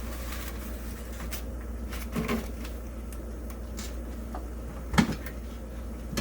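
A few scattered knocks and clunks of kitchen things being handled, the loudest a single thump about five seconds in, over a steady low hum.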